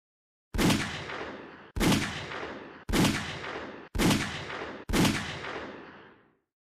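Five shots from a Sig Sauer P938 9mm pocket pistol firing MagTech Guardian Gold 115-grain +P hollowpoints into ballistic gelatin, about a second apart, each a sharp crack followed by a fading echo.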